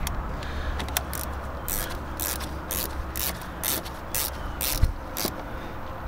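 Ratchet wrench tightening a battery terminal clamp: a series of short ratcheting bursts, about two a second, as the cable is reconnected.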